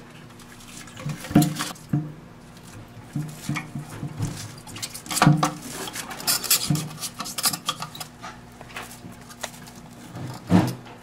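Plastic toilet-tank parts knocking and scraping against the ceramic tank as the old fill valve is worked loose by hand: irregular knocks and rubbing, with the loudest knocks about a second in, about five seconds in, and near the end.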